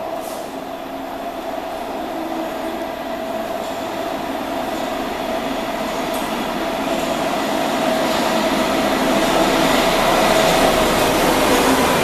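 MARTA rapid-transit train approaching and pulling into an underground station platform. Its running noise grows steadily louder as it nears, with a steady whine running through it.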